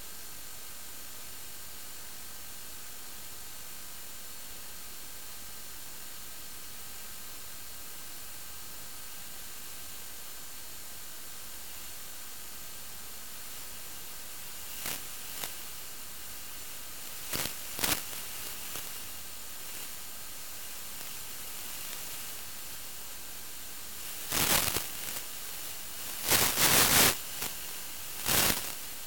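Steady static hiss from an analog FPV video link, broken in the second half by short, loud crackling bursts of interference that grow loudest near the end.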